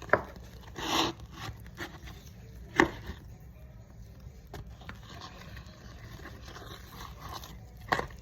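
Slime-making handling sounds: three sharp clicks or knocks (near the start, about three seconds in, and near the end) with a short rustle about a second in and soft rubbing between.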